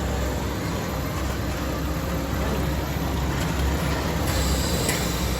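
Rotary fabric-flocking machine running: a steady low hum under an even mechanical noise, with a brighter hiss joining about four seconds in.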